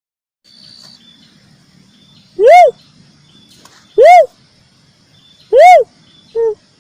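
Cuckoo-dove (uncal) lure call: loud single coos about every second and a half, each rising and then falling in pitch, with a short, lower note near the end.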